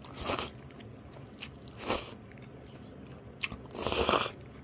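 Close-up chewing of crunchy food: three short crunching bites, the last one longer and the loudest, with a small click just before it.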